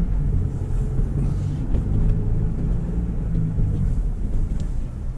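Mazda Bongo van driving, heard from inside the cabin: the engine and its new rear exhaust silencer make a steady low drone, which eases off about four seconds in.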